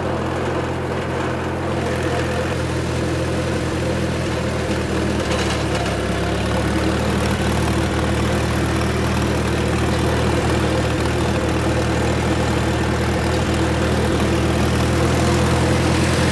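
1936 Farmall F-20 tractor's four-cylinder engine running steadily, heard close up from the driver's seat, getting slightly louder near the end.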